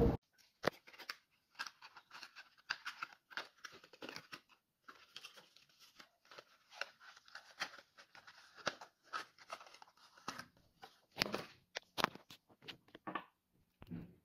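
Cardboard packaging and a bundle of thin reed diffuser sticks being handled: a run of short rustles, taps and crinkles, loudest about eleven seconds in.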